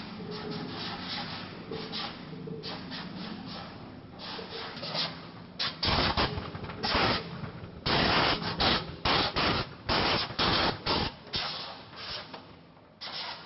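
Potato grading machine running: potatoes tumble and rub along the sorting conveyors over a steady machine hum. Through the middle there is a run of loud, irregular noise bursts.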